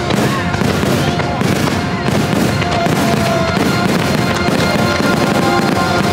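Fireworks bursting in rapid succession over loud music from the show's soundtrack.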